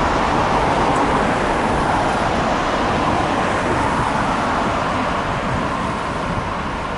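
Jet takeoff roar from a Boeing 747-400's four Rolls-Royce RB211 turbofans at takeoff power, a steady loud roar that slowly fades, mixed with road traffic passing close by.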